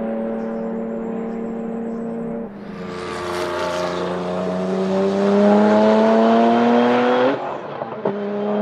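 Venturi 400 Trophy's 3.0-litre twin-turbo V6 racing engine at speed, its note first held steady, then climbing for about five seconds under acceleration. It cuts off suddenly as the throttle closes, with a few sharp pops from the exhaust, and comes back on near the end.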